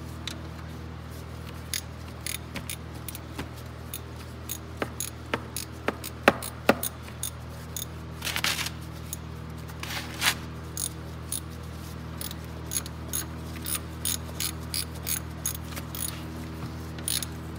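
Socket ratchet clicking in repeated short strokes, with metal tool clatter and a brief scrape or two, as the 10 mm drain bolt is run back into an ATV's rear differential and snugged down. A steady low hum lies underneath.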